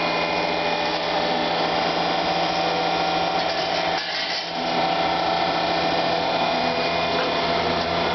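TOS planer-milling machine fitted with a grinding head, running with a steady mechanical hum and whine. The sound dips briefly about four seconds in.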